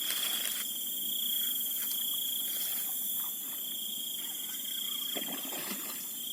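Night insects trilling in a steady high chorus, with a couple of brief rustles, one at the start and one about five seconds in.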